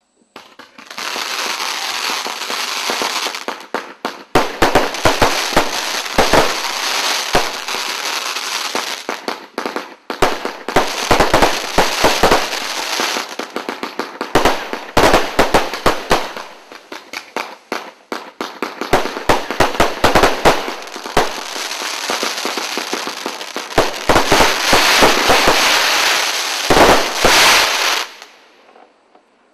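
A 132-shot 500-gram consumer fireworks cake firing: rapid bangs over a continuous hiss, in about six volleys with brief breaks between them, dying away near the end.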